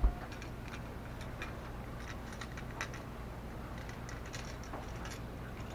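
Handling noise from a wooden Victor mouse trap as a part is fitted onto it: one knock at the very start, then scattered light clicks and taps, over a steady low hum.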